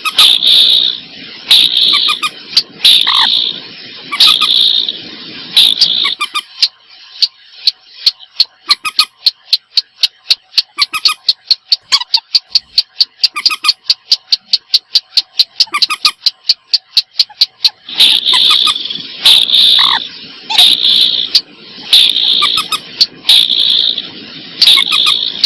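Recorded calls of common moorhen (mandar batu) and a second rail-like bird, played back: harsh repeated calls about every second and a half, giving way about six seconds in to a fast, even run of sharp clicking notes, roughly five a second, before the harsh calls return near eighteen seconds.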